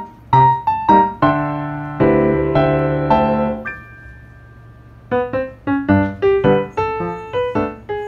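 Background piano music: a run of single struck notes, sustained chords about two seconds in that fade out by about four seconds, then a quick run of notes again.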